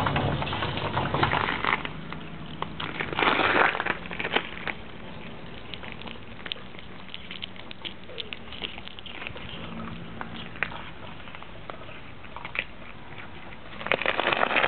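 Kittens eating food from a plate: many small quick clicks of chewing and licking. A louder rush of noise comes about three seconds in and again near the end.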